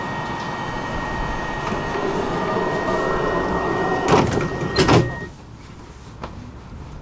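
A commuter train's power-operated sliding door closing: a steady high warning tone sounds, then the door shuts with two knocks a little under a second apart, about four and five seconds in. Once it is shut, the background noise drops sharply.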